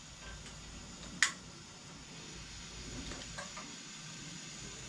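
A single sharp click about a second in as a lighter is sparked at the burner of a two-burner propane camp stove, then a faint steady hiss of gas with a few soft ticks.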